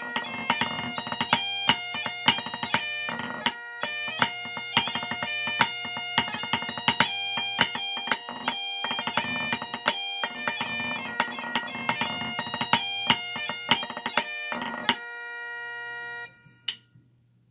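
Highland bagpipe playing a 2/4 march over its steady drones, with the rapid rhythmic tapping of drumsticks on a pipe-band practice pad. Near the end the tune finishes, the drones cut off, and one last stick tap follows.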